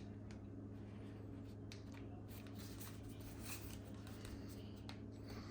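Faint rustling and small scattered clicks of a replacement ear pad being pulled back and pushed under the plastic hooks of a Bose QC35 headphone earcup, over a steady low hum.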